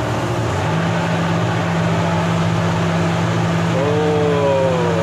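Hitachi ZX350-5G excavator's diesel engine running steadily with the hydraulics working the boom. A steady low hum joins the engine drone about half a second in.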